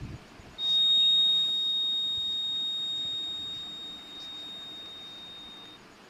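Buzzer of a homemade transistor alarm circuit sounding one steady high-pitched tone. It starts about half a second in, is loudest at first, then fades slowly and cuts off just before the end: the alarm going off after the circuit is triggered.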